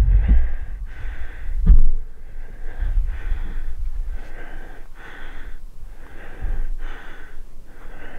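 A man breathing hard and fast, in quick rhythmic heavy breaths, out of breath after stalking through deep snow. A single sharp loud crack comes about two seconds in.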